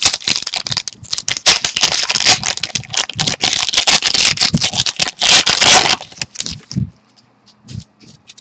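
Trading-card pack wrapper being torn open and crinkled: dense crackling that stops about six seconds in, followed by a few light taps and clicks as the cards are handled.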